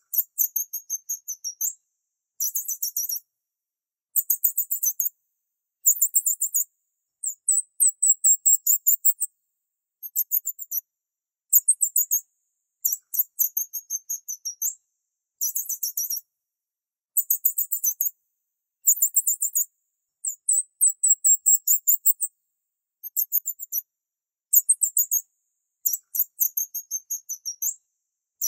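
High-pitched chirping in quick trains of about seven pulses a second, each train lasting about a second, separated by short gaps of dead silence.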